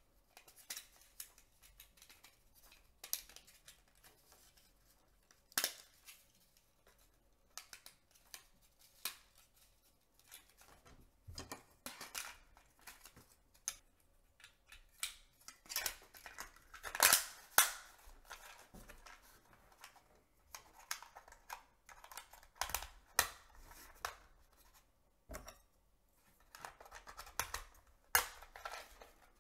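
Plastic body of a Kodak FunSaver disposable camera being handled and pressed together: scattered sharp plastic clicks and rattles, busiest and loudest about halfway through.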